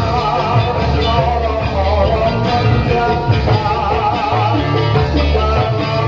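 Loud live music for a Topeng Ireng folk dance, with a heavy pulsing bass beat under a wavering melody line.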